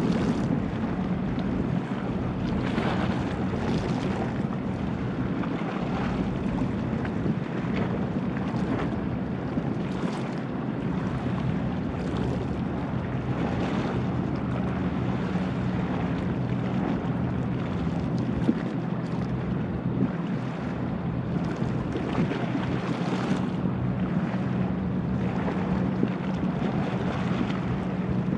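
A boat's engines running with a steady low drone, under the rush of water and gusts of wind on the microphone.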